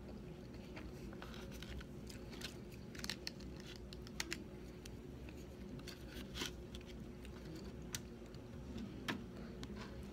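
Someone eating sushi close to the microphone: soft chewing and mouth sounds with scattered sharp little clicks and taps from wooden chopsticks and food handling, over a steady low hum.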